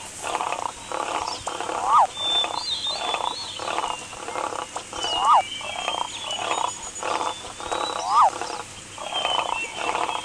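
A wildlife sound-effect track of wild animal calls: croaking pulses repeat about three times a second, a sharp rising-then-falling call comes about every three seconds as the loudest sound, and thin bird-like whistles sound above them.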